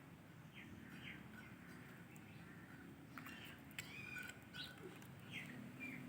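Indian ringneck parrot making faint, short falling chirps in small groups. A steady low hum runs underneath.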